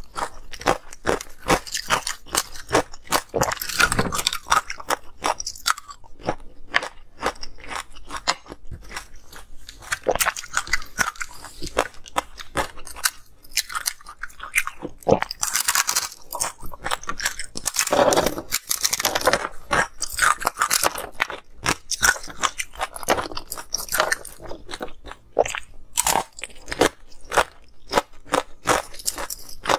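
Close-miked crunching and chewing of ice and pomegranate seeds: a dense run of sharp cracks, with no pause.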